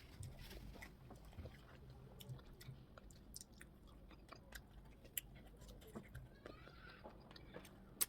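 Faint close-up chewing of plantain fufu with okra soup: soft wet mouth clicks and smacks at irregular intervals, with one sharper click near the end.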